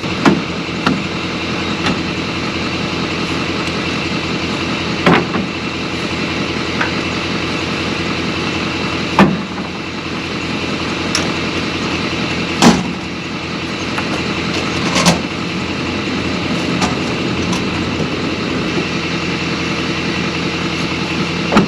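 A vehicle driving: steady engine and road noise, with a few sharp knocks and rattles from bumps along the way.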